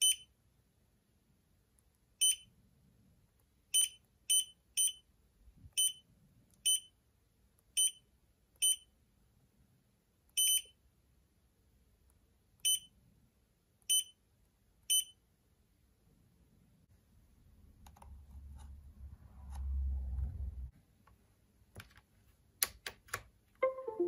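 Touch-screen display panel's beeper sounding short, high key-press beeps as on-screen buttons are tapped, about a dozen at irregular intervals. Later a low rumble of handling and a few sharp clicks near the end.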